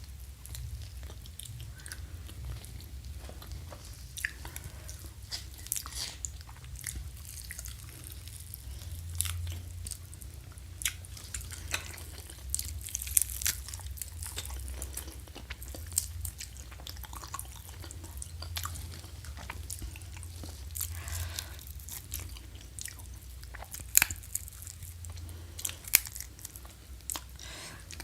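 A person chewing and biting food close to the microphone: a steady run of wet mouth clicks and small crunches, with a couple of sharper, louder crunches near the end, over a steady low hum.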